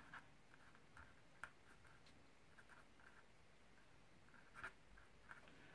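Faint scratching of a pen writing on paper, in short strokes with a few soft ticks.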